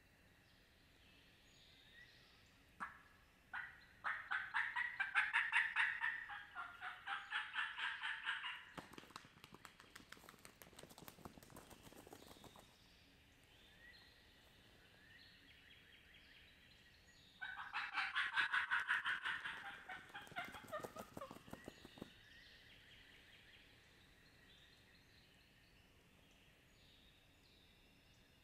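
Turkey gobbling: two long runs of loud, rapid, rattling gobbles, one a few seconds in and another past the middle, each dropping in pitch as it ends. Small birds chirp faintly between them.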